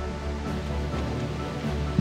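Background music with held notes over a steady low bass.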